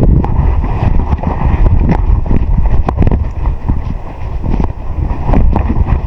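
Wind buffeting the microphone: a loud, gusting low rumble that rises and falls, with scattered short clicks and knocks through it.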